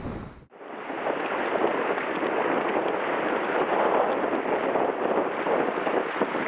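Low wind buffeting on the microphone, cut off abruptly about half a second in, then a steady even rush of sea water washing on the rocky shore.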